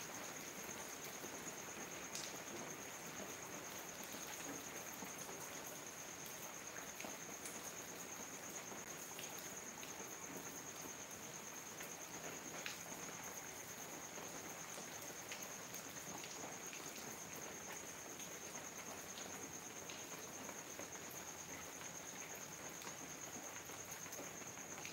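Steady rain falling on leaves and paving: an even hiss with scattered drip clicks. A cricket's continuous high trill runs over it.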